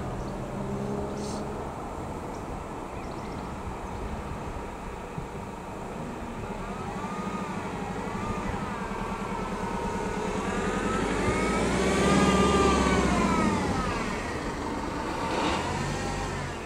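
Freightliner Class 66 diesel locomotive approaching with a train of hopper wagons, its two-stroke V12 engine running steadily and growing louder, loudest about twelve seconds in. A wavering high whine rises and falls over the engine through the middle of the approach.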